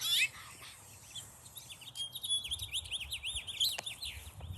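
House finch calls: a loud falling chirp at the start, then from about two seconds in a quick run of short, high, rising-and-falling chirps, about five a second, for a couple of seconds.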